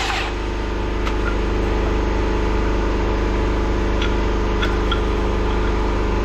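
A lathe motor running steadily, an even hum with a hiss over it and a few faint ticks.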